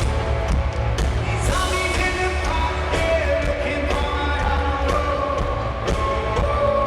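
A rock band playing live, with regular drum hits under a steady bass and a sung melody.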